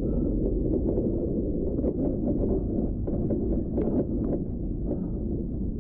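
Muffled rustling and rubbing of beekeeping-suit fabric against the microphone, a steady low rumble with scattered small clicks and knocks.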